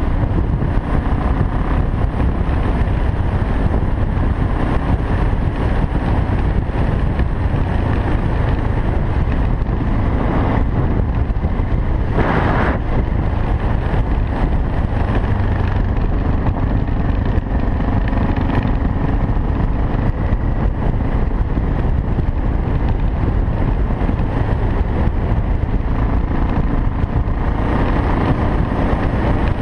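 BMW F650GS single-cylinder engine running at a steady cruising speed, heavily mixed with wind rushing over the helmet camera's microphone. A brief louder rush of noise about twelve seconds in.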